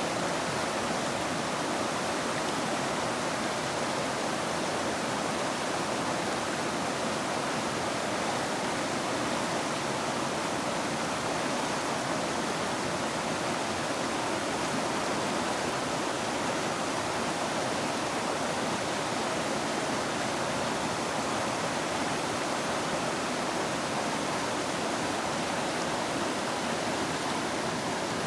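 River water rushing, an even, unbroken rush that never changes.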